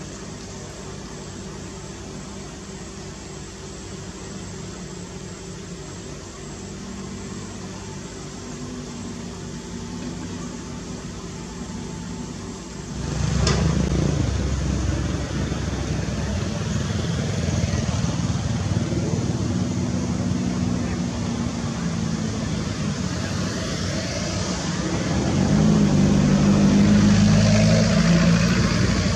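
Diesel engines of hydraulic excavators, a Komatsu PC200 among them, running steadily. The sound turns abruptly louder about halfway through and swells again near the end as the machines dig.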